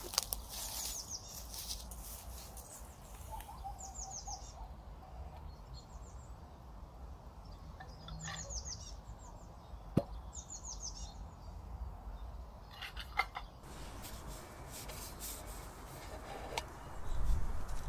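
A songbird calling again and again in short groups of quick, falling high notes, over a low outdoor rumble. There is a single sharp click about ten seconds in and a few more clicks around thirteen seconds.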